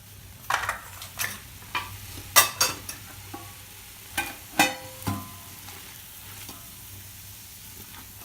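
Metal spoon stirring vegetables and spices in a cooking pot on the stove, with about eight sharp scrapes and clinks against the pot in the first five seconds, a few ringing briefly, then quieter stirring.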